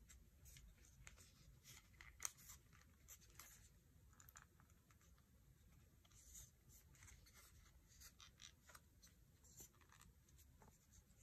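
Faint scratching and small clicks of a BlackBerry Q10's plastic and metal housing being handled and pried apart with a small tool during disassembly, with one sharper click about two seconds in.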